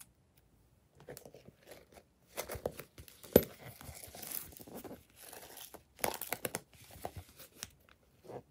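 A stiff plastic toy handbag being handled: irregular crinkling and crackling, with one sharp click about three and a half seconds in.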